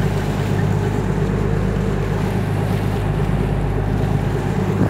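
A boat's engine running steadily, with wind and water noise over it.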